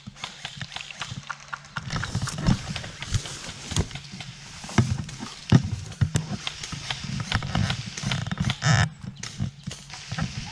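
Footsteps and rustling through woodland undergrowth and leaf litter, with many sharp cracks and clicks and repeated low thuds. A short rushing swish comes near the end.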